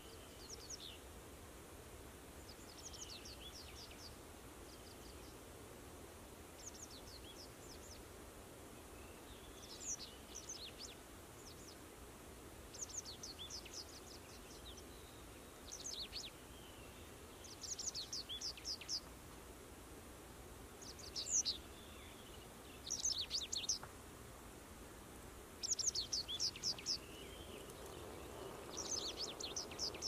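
A small songbird singing short, rapid phrases of high chirping notes, one phrase every two to three seconds, over a faint steady background. Near the end a low rushing noise slowly builds.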